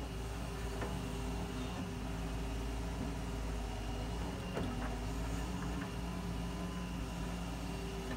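Doosan hydraulic excavator's diesel engine running steadily as the arm and bucket dig into earth, with a couple of faint knocks.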